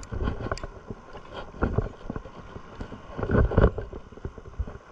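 Wind buffeting the microphone in uneven gusts, strongest about a second and a half and again about three and a half seconds in.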